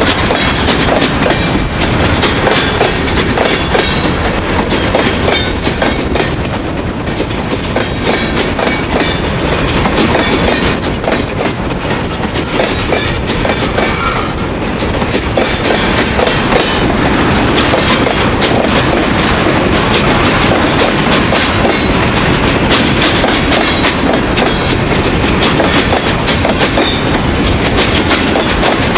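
Freight train cars rolling past close by, their steel wheels clattering steadily over the freshly ballasted track. The train noise is a bit softer for a few seconds in the middle.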